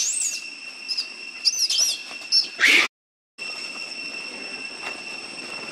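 Young macaque crying in shrill squeals that rise and fall, several short ones and a louder one about two and a half seconds in. The sound cuts out briefly about three seconds in, after which only a steady high-pitched whine remains.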